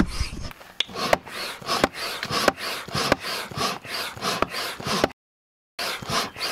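Stand-up hand pump inflating a Blackfin Model XL inflatable paddleboard: a steady rhythm of about two pumping strokes a second, each a rasping rush of air, some ending in a sharp click. The sound drops out for about half a second near the end.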